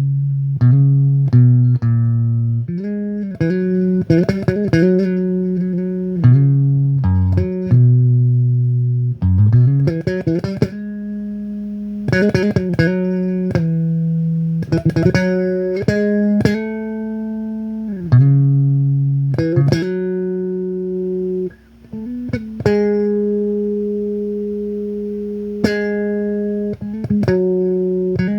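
Solo electric bass guitar playing a slow worship melody: single plucked notes that ring on and fade, with a brief pause about three quarters of the way through.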